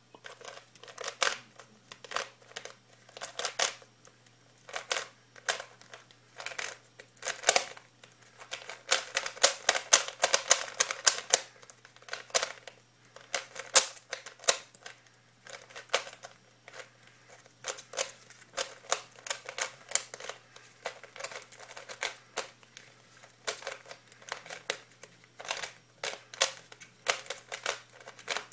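A plastic Rubik's Cube being turned fast during a speed solve: rapid clicking and clacking of its layers in bursts with short pauses. The run is busiest from about eight to twelve seconds in.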